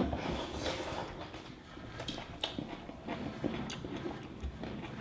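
Close-up eating sounds: chewing a mouthful of rice and curry, with a few small sharp clicks and ticks scattered through.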